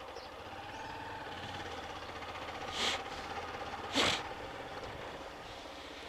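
Motorcycle engine running at low speed with a steady drone. Two short hissing bursts come about three and four seconds in, the second louder.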